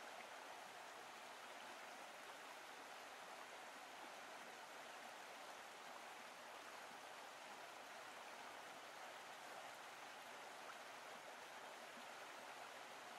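Near silence: a faint, even hiss with no engine, voice or music in it.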